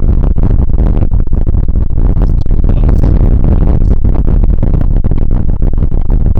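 Strong wind buffeting the microphone: a loud, constant low rumble broken by many rapid knocks and rattles.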